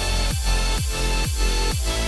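Electronic background music with a kick drum beating about twice a second over sustained bass.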